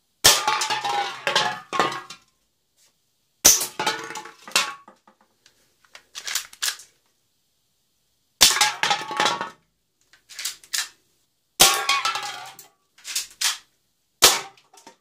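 Mechanical spring-powered Umarex Beretta 90two airsoft pistol firing 6mm BBs: five sharp snaps, about every three seconds, each followed by a second or so of metallic clatter and ringing as the BB strikes the aluminium can and bounces about. Fainter clicks come between the shots.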